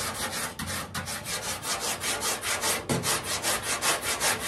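Hand sanding block with 80-grit paper rubbing back and forth over body filler on a car's front fender, in quick, even strokes, shaping the filler to recreate the body line.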